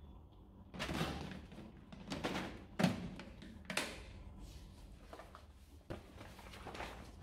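A folded tarp-like repotting mat being handled: several short rustles and soft thumps as it is pulled out and moved, with one sharper knock about three seconds in.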